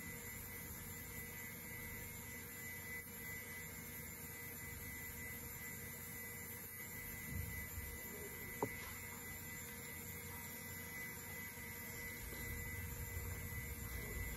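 Steady hum from a 1996 IBM PC Server 315 booting, with a thin, steady high whine over it. There is a single sharp click about nine seconds in.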